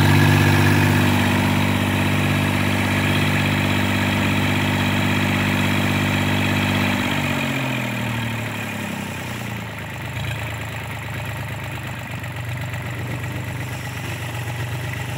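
Mitsubishi K3F three-cylinder diesel engine running just after an electric start, fast at first. About seven seconds in, its speed falls away, and it settles into a steady, lower idle.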